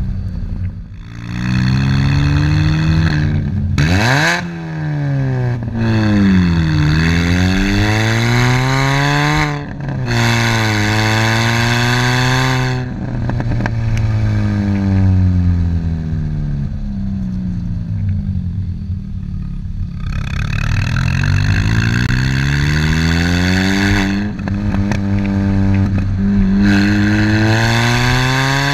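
Loud exhaust note of an R53 Mini Cooper S's supercharged 1.6-litre four-cylinder running through a straight-through exhaust with no muffler, heard at the tailpipes while driving. The engine pitch climbs and drops back several times as the car accelerates and eases off.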